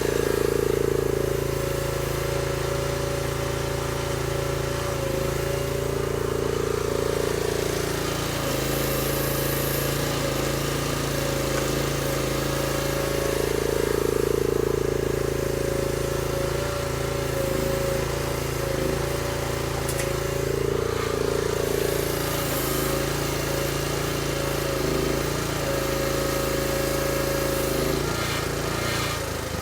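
Chinese mini excavator's engine running steadily, with a droning tone that swells and fades every few seconds as the machine works.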